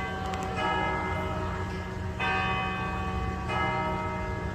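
Church bells of St. Joseph's Cathedral ringing, with three strokes about a second and a half apart, each ringing on until the next. Successive strokes differ in pitch, as from different bells.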